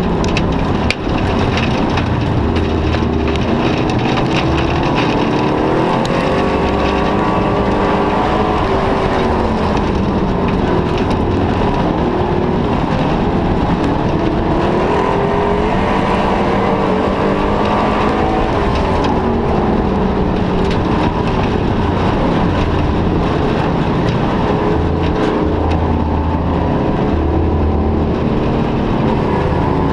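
Race car engine heard from inside the car at race pace, its note rising and falling again and again every few seconds as the driver accelerates and lifts, over a constant rush of noise and rattling.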